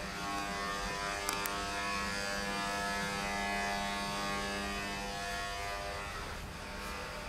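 A steady electric buzz with a hum under it, from an unseen running machine. Two light clicks about a second and a half in.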